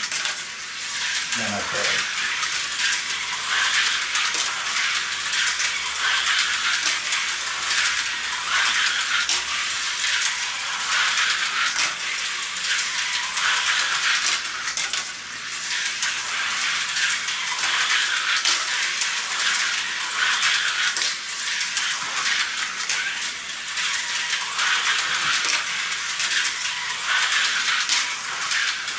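Tyco HO slot cars running laps on a plastic track: a steady high whir of the small electric motors with wheels and pickups rattling in the lanes. It swells and fades every few seconds as the cars go round.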